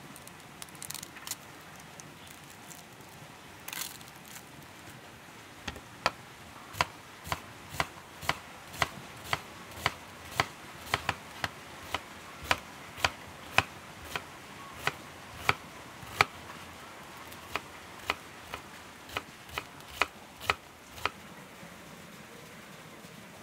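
A large kitchen knife chopping an onion on a wooden cutting board: sharp, even knocks of the blade on the board, about two a second. A few light clicks of handling come first, and the chopping stops near the end.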